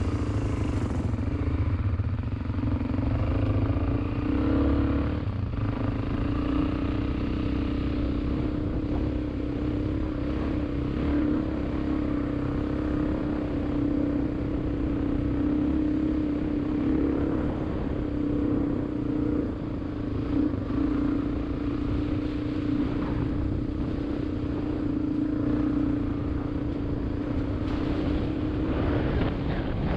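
A vehicle engine running at a steady speed while driving off-road, with a few brief knocks and rattles.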